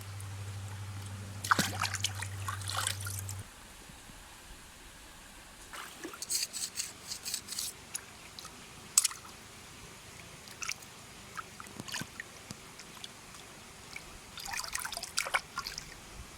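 Water trickling and splashing in several short spells of small clicks and drips, with a steady low hum that cuts off about three seconds in.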